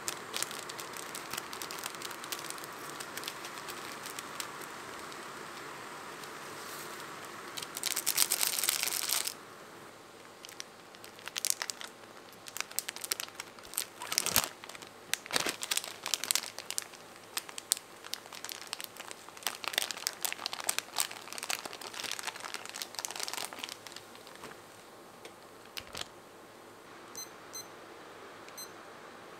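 Crinkling and tearing of foil and plastic food packets as a seasoning sachet is torn open and a pouch of noodles is tipped into a tray of simmering water, with one loud rustling burst partway through. A few short beeps from a digital kitchen timer being set come near the end.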